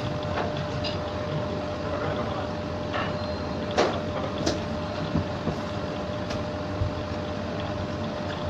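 Steady machine hum with a constant faint tone, with a few light clicks and taps, most plainly in the middle, as the metal palette knife works over the cake.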